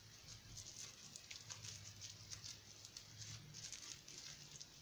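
Faint rustling and crinkling of packing wrap being peeled off by hand from a small tea-set lid, a scatter of light ticks, over a low steady hum.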